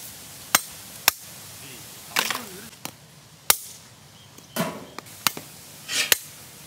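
Hard shells of large mud crab claws being struck and cracked open on a wooden chopping block: about half a dozen sharp knocks, with a few longer crunching sounds as the shell breaks.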